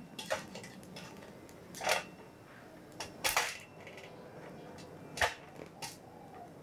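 Metal tongs knocking and scraping against a half coconut shell and the metal pan supports of a portable gas stove as the coconut is turned over the flame: about six short sharp knocks spread out, over a faint steady hiss from the lit burner.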